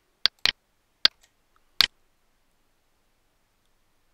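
Four sharp computer mouse clicks within about two seconds, made while dragging an object on screen.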